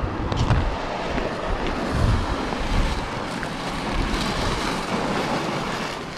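Battery-powered ice auger drilling a hole through lake ice, a steady noisy drone, with gusts of wind buffeting the microphone.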